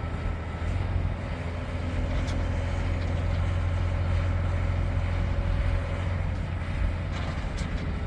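Heavy construction equipment's diesel engine running steadily, a continuous deep rumble.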